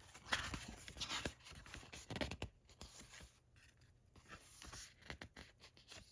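Soft rustling and scraping of paper and card as a collector's photo book and the set's printed contents are handled, with a few light taps. The rustles come in irregular spells, busiest early and again about two seconds in.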